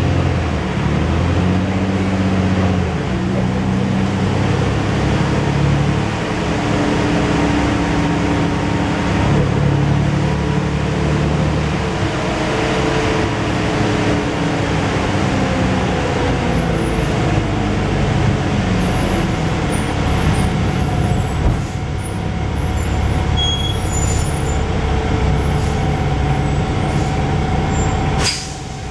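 Diesel engine and transmission of a Dennis Dragon double-decker bus heard from inside the lower deck, the pitch rising and falling again and again as the bus speeds up and slows. A short sharp hiss comes near the end, and then it goes quieter.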